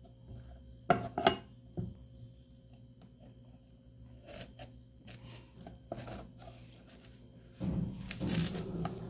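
Large kitchen knife cutting into a raw purple sweet potato on a cutting board: a few sharp knocks about a second in, scattered small clicks, then a longer rasping stretch near the end as the blade works through the tuber.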